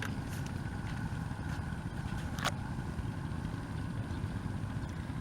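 A motor running steadily at low speed, with a single sharp click about halfway through.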